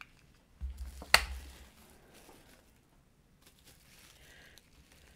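A sheet of plastic bubble wrap handled and picked up off a tabletop: a dull bump and one sharp click about a second in, then faint plastic rustling.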